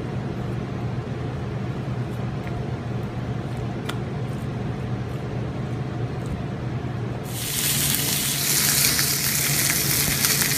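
A steady low hum, then about seven seconds in a ribeye steak starts sizzling loudly on a hot ridged grill pan.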